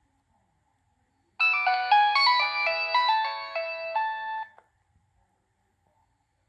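A preloaded Nokia 6015i ringtone playing a short melody, with several notes sounding at once. It starts about a second and a half in and stops after about three seconds.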